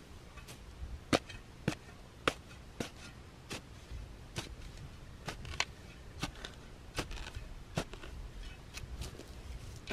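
Steel spade chopping into turf and soil: a string of sharp, short crunches at an uneven pace, roughly one or two a second.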